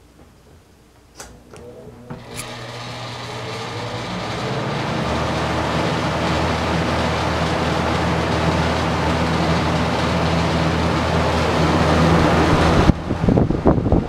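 Galaxy box fan switched on with a couple of clicks of its rotary knob, then the motor hums and the blades spin up, the rush of air building over a few seconds and running steady. Near the end the fan's airflow buffets the microphone as it comes up to the front grille.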